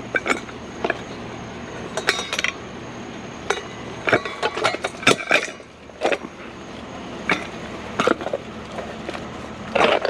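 Hard objects being handled and set down: a string of irregular knocks and clatters, with a few brief ringing clinks like metal or glass striking, about two seconds in and again around four to five seconds in.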